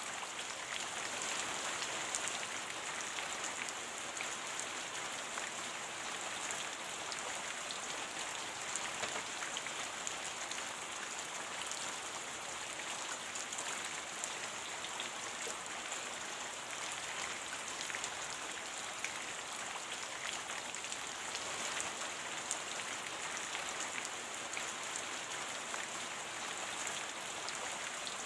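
Steady rain falling, an even hiss dotted with many small drop ticks and no change in intensity.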